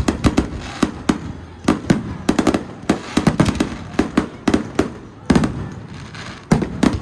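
Fireworks display going off: a fast, irregular string of loud bangs and pops, several a second, each trailing a short echo.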